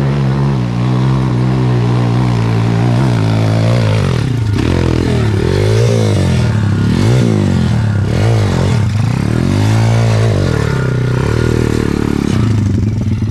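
A pit bike's engine revving up and falling back again and again as it is ridden up a climb. A steady engine note runs underneath.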